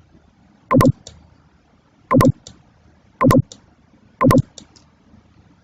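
Four sharp clicks or knocks, roughly one a second, each followed by a couple of faint ticks.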